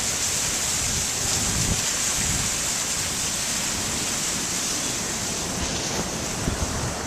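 Heavy monsoon downpour in strong wind: a steady dense hiss of rain, with gusts rumbling on the microphone.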